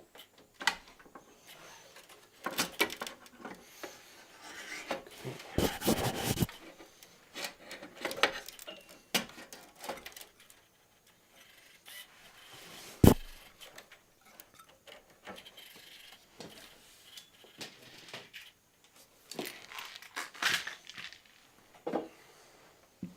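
Hands working on a PC case and water-cooler parts: scattered clicks, rubbing and scrapes, with a longer rustling scrape about six seconds in and one sharp knock about halfway through, the loudest sound.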